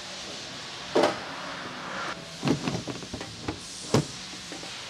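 Harley-Davidson tour pak trunk being set down and pressed onto its rear mounting rack: a sharp clunk about a second in, a short cluster of knocks and rattles in the middle, a click, and another sharp clunk near the end.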